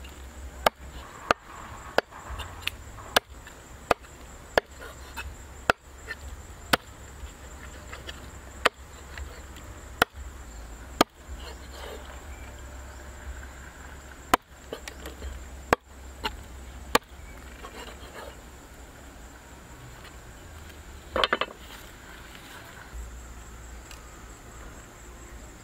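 Chopping: a run of sharp blade strikes about once a second, spacing out and stopping a little past the middle. Insects buzz steadily in the background.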